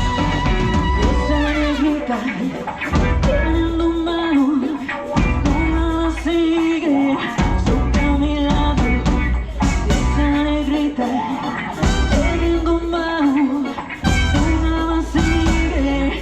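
Live Latin pop band playing an up-tempo number, a sliding melody line over bass and percussion.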